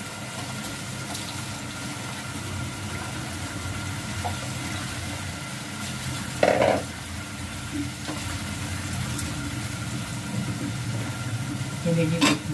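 Beef pieces sizzling steadily in oil in a pot on a gas stove, over a steady low hum. A brief louder sound comes about six and a half seconds in, and another near the end.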